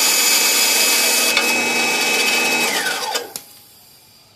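Craftsman 11-inch 1/3 horsepower bandsaw running with a steady whine, then switched off: about three seconds in the motor's whine falls in pitch as the blade spins down. A sharp click comes just after.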